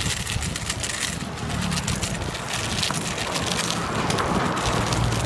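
Scooter rolling over pavement: the wheels rumble and rattle with many small clicks, with wind buffeting the microphone.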